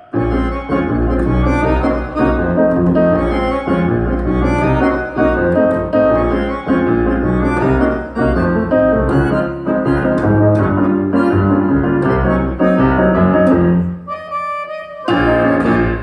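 Live instrumental ending of a song on accordion with a double bass line underneath. About fourteen seconds in the playing thins to a few held accordion tones, then closes on a final full chord.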